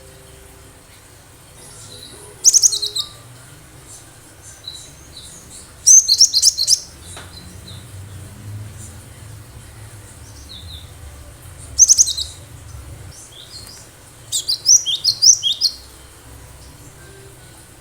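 Cinereous tit (gelatik batu) calling: short bursts of rapid, high-pitched chirping notes, four bursts a few seconds apart, the last one longer.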